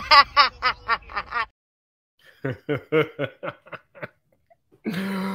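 A woman laughing hard in quick, rapid bursts. After a short pause comes a second, lighter run of laughter, a man chuckling.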